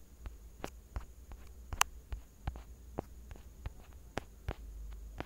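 Faint, sharp, irregular clicks, about three a second, the sharpest a little under two seconds in, over a low steady hum.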